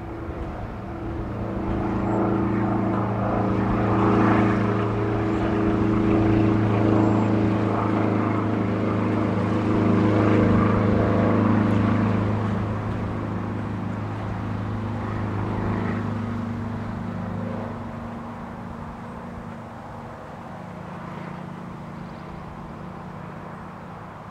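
Propeller airplane flying over, its engine drone swelling over the first few seconds, staying loud for several seconds, then slowly fading away.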